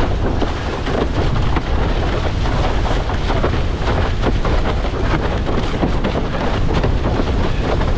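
Loud, steady wind buffeting the microphone of a camera on a windsurfing rig moving fast across choppy water.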